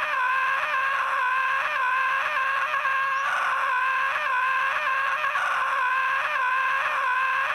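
A cartoon sun character screaming one long, unbroken, high-pitched "AHHH" that wavers slightly in pitch.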